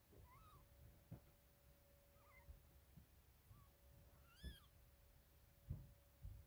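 Newborn kitten mewing faintly in short, high cries, about four times, as it tries to nurse from its mother; the clearest cry comes about four and a half seconds in. Soft low thumps of movement and a faint steady hum lie underneath.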